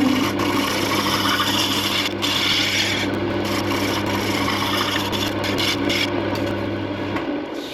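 Wood lathe running with a steady motor hum while a tool or sandpaper rubs against the spinning wood with a rough rasping noise. The motor hum cuts out near the end and the noise dies away as the lathe stops.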